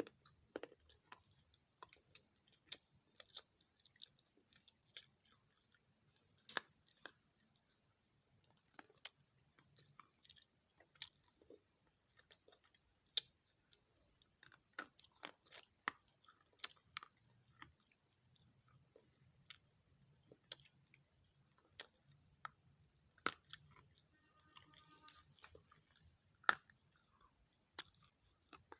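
Close-up chewing and biting of dry multani mitti (Fuller's earth clay) chunks: sharp, irregular crunches about every second or two, with softer chewing between them.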